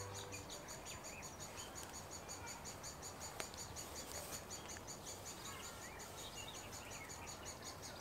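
Great spotted woodpecker chicks chirping in the nest: a faint, rapid, evenly repeated high chatter, with a single click about three and a half seconds in.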